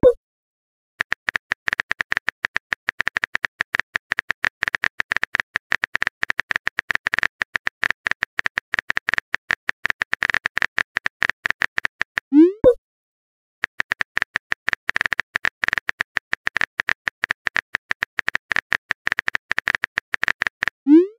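Phone keyboard typing sound effect: a fast, steady run of tap clicks. About twelve seconds in it stops for a short rising pop, the message-sent sound. The typing then starts again and ends in another pop.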